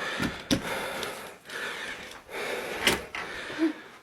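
A few short, sharp knocks and clicks in a small room, three clear ones with quiet handling noise between them.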